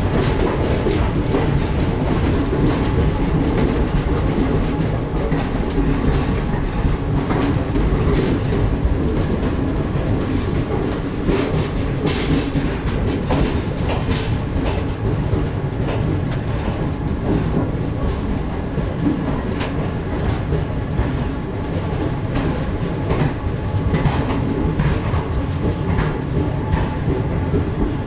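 Indian Railways ICF-type sleeper coaches rolling past close by, a steady heavy rumble of wheels and bogies with irregular clicks as the wheels cross rail joints.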